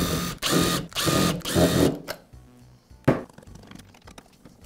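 Cordless drill/driver backing out the handle-cover screws of a band saw, its motor whirring in a few short bursts over about two seconds. A single sharp click follows about three seconds in.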